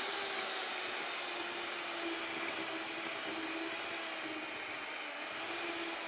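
Electric hand mixer running steadily with a slightly wavering hum, its beaters whisking egg yolks and sugar in a glass bowl.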